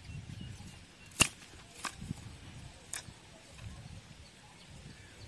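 Dry firewood sticks clacking against each other as they are laid over a small kindling fire: three sharp knocks, the loudest about a second in, over a low rumble.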